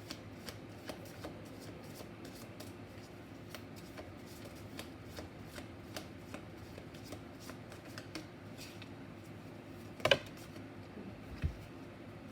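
A tarot deck being shuffled by hand: many light, quick card flicks and riffles. About ten seconds in comes a louder sharp crack, and a short low thump follows about a second and a half later.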